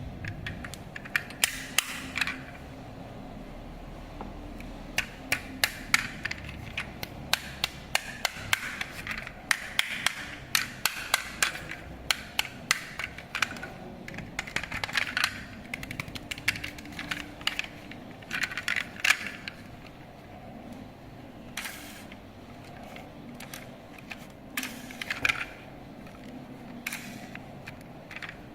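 Toy RC car clattering and scraping: many irregular sharp clicks and short scraping rushes over a low steady hum.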